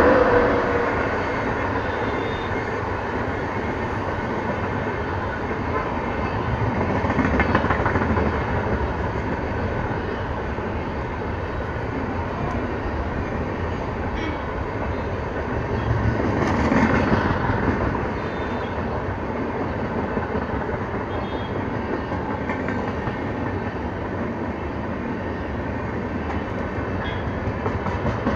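Coaches of an Indian Railways passenger train rolling past close by: steady running noise of the wheels on the rails, swelling twice, about 7 and 17 seconds in.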